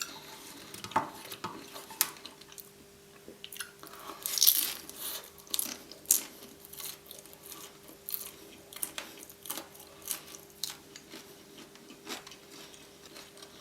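Close-miked eating sounds: irregular chewing and crunching of crispy fried noodles, with small clicks and a louder burst about four and a half seconds in. A faint steady hum sits underneath.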